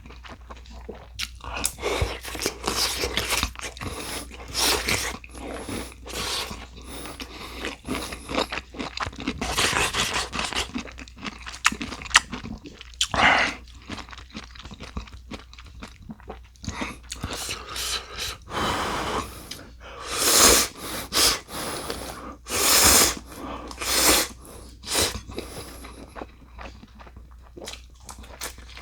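A person eating instant ramen and kkakdugi (cubed radish kimchi): repeated crunching bites and chewing at an irregular pace.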